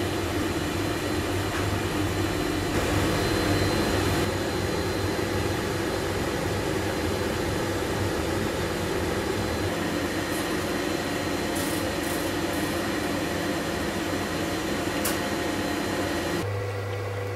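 Anycubic Chiron 3D printer running mid-print: a steady whir from its fans and motors. It cuts off suddenly shortly before the end, leaving a low hum.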